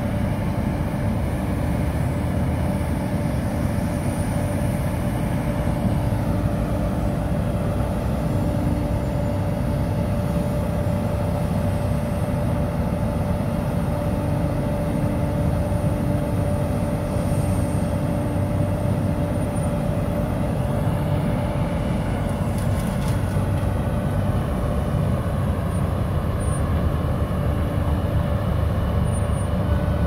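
Volvo wheel loader with a front-mounted snowblower attachment running steadily while blowing snow into a dump truck: a constant heavy diesel rumble with a steady whine over it.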